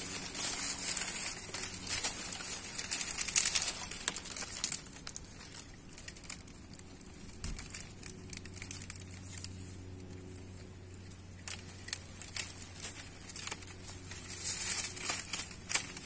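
Dry palm fronds rustling and crackling as they are trodden and handled: clusters of sharp crackles, busiest in the first few seconds and again near the end.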